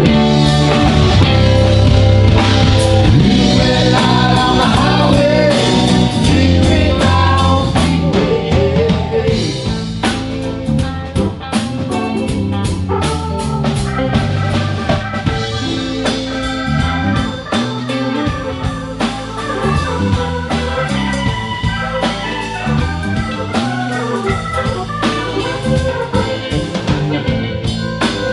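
A live rock band playing a song: electric guitars, bass guitar, drum kit and keyboard together at a steady beat, with no breaks.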